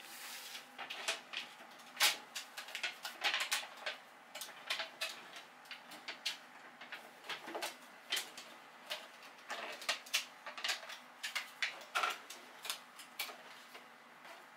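Foil tape being pulled off its roll, peeled and pressed onto a sheet-metal dryer vent pipe: an irregular run of crinkles, crackles and light taps, the sharpest about two seconds in and again near twelve seconds.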